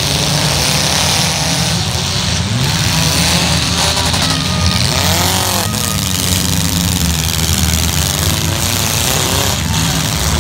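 Several demolition derby cars' engines running and revving hard, a loud continuous rumble with a few rising and falling revs about four to five seconds in.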